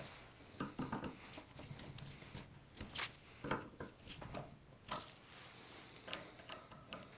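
Irregular light clicks and knocks, like small parts being handled and set down, with the strongest knocks about three and five seconds in.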